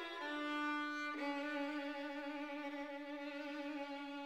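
Background music: a violin playing slow, held notes with a slight vibrato, stepping down to a lower note about a second in.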